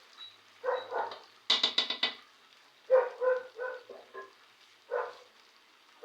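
A dog barking repeatedly: short barks, single or in pairs, about once a second, with a harsher rapid burst of yelps about a second and a half in.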